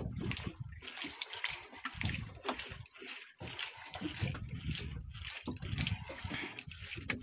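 Sea water splashing and slapping against the hull of a small fishing boat, irregular and choppy, with gusts of wind on the microphone.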